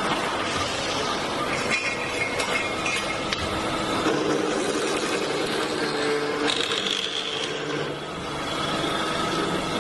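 Servo-fed automatic circular-saw pipe cutting machine running: a steady mechanical din with a few metallic clinks.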